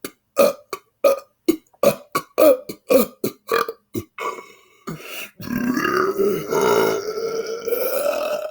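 A man burping: a rapid string of short burps, about three a second, for about four seconds, then after a short pause one long drawn-out belch that rises slowly in pitch.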